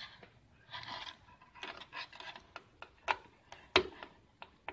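Handling noise at a repair bench: a couple of short rustles, then a series of small sharp clicks and taps, the loudest about four seconds in, as meter test probes are handled and placed on a TV circuit board.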